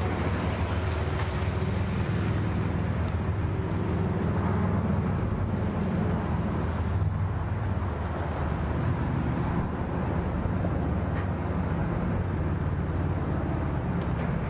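Engine running steadily, a low, even hum that grows a little louder around the middle.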